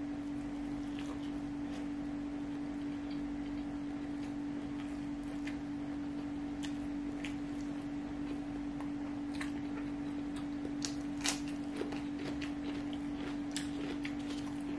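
Close-miked mouth sounds of a man chewing a mouthful of fried rice eaten by hand: scattered soft clicks and smacks, with a sharper click about eleven seconds in, over a steady low hum.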